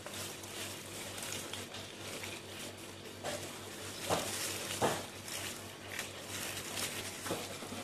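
Gloved hands tearing boiled chicken apart in a metal pot: soft handling noise with a few short clicks and knocks, over a steady background hiss.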